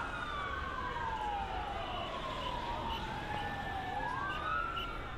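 Siren wailing in slow falls and rises: a long fall, then a rise near the end, with a second siren overlapping it, over a low rumble of city traffic.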